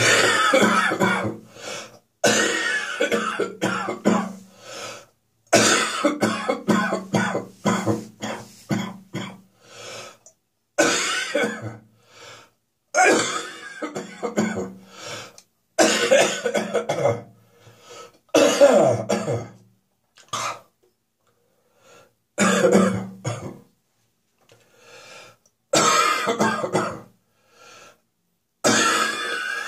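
A person's hacking morning cough, coming in about ten fits of several quick coughs each, with short pauses for breath between them. The cough is becoming slightly drier but is still strong first thing after waking.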